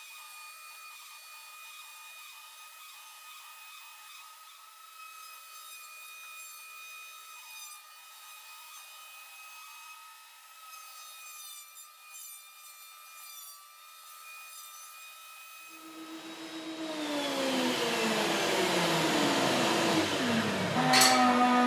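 DeWalt benchtop thickness planer running as a rough old pine plank feeds through for a light pass, heard faint and thin with a steady high whine. About sixteen seconds in, a much louder rushing noise rises, with several tones sliding down in pitch, and a sharp knock comes near the end.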